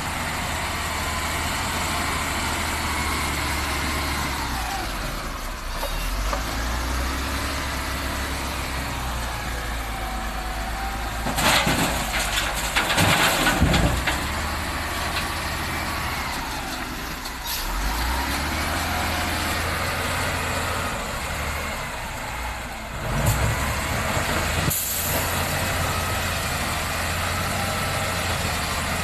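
A wheel loader's diesel engine rising and falling in pitch as it works, over a steady low diesel idle from the waiting dump truck. From about twelve to fourteen seconds in there is a loud rushing clatter as the bucketful of sand and gravel pours into the truck's steel dump bed, and a shorter clatter comes about twenty-three seconds in.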